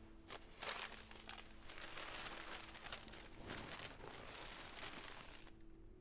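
A folded paper airplane being crumpled in a hand: a run of crinkling and crackling paper lasting about five seconds. It starts with a sharper crunch just under a second in and stops shortly before the end.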